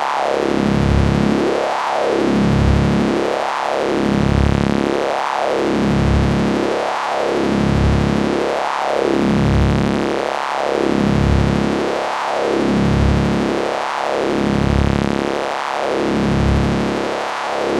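Synthesized sci-fi electricity sound effect: a steady, low electric buzz whose tone sweeps bright and dull again in a regular wavering cycle, about once every second and three-quarters.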